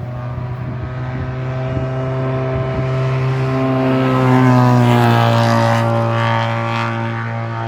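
Historic racing car engine held at steady high revs as the car comes up and passes. The note grows louder, peaks about halfway through, and its pitch drops as the car goes by, then fades slightly.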